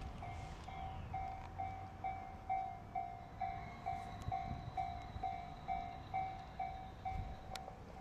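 Japanese railway level-crossing alarm ringing its electronic warning bell, a repeated ding about twice a second, while the barriers are down for an approaching train.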